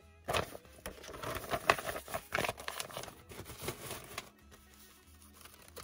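Paper rustling and crinkling as things are lifted and pushed aside inside a gift box, a busy run of crackles that stops a little past four seconds in.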